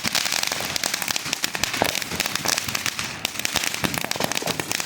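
Fireworks crackling: a dense, continuous run of rapid small pops.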